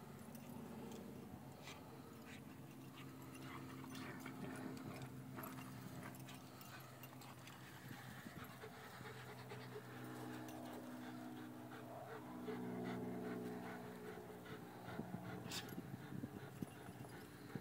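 Dogs panting and breathing hard during rough play-fighting, with one dog panting close up near the end.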